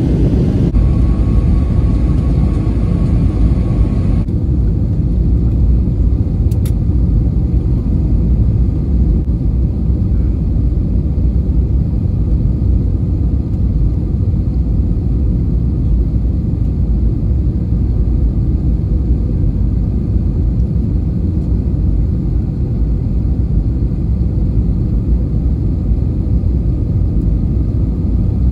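Airbus A321neo cabin noise on final approach with flaps extended: the steady rumble of its engines and the airflow, heard inside the cabin. A faint high tone over the first few seconds stops abruptly about four seconds in.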